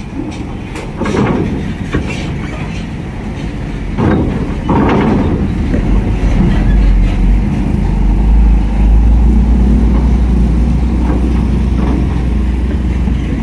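Heavy diesel vehicles driving off a ferry ramp onto steel grating. A deep engine rumble builds from about five seconds in as a Scania K410IB bus comes down the ramp, with a couple of short bangs at about one and four seconds in.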